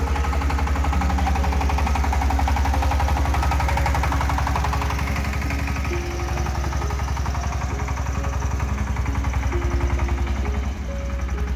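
Rossel mini tractor's engine running steadily, with a rapid, even clatter.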